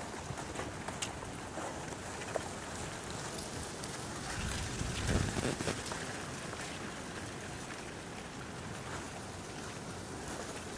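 Wind buffeting the microphone: a steady rushing noise, with a stronger low gust about five seconds in and a few light clicks.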